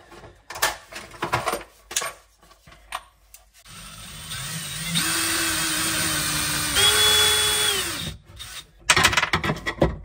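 Cordless drill spinning up and running for about four seconds, boring a pilot hole for a cabinet door hinge with a wood bit; its whine steps up in pitch near the end before it stops. Handling clicks and knocks come before and after.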